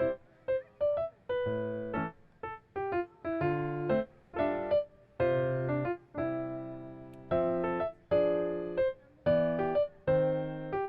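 Background music: a light, bouncy electric piano tune played in short chords and notes with brief gaps between them.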